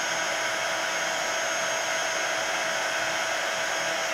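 Craft embossing heat tool blowing steadily, a constant rush of air with a fixed motor hum and a faint high whine, as it melts embossing powder until it goes shiny.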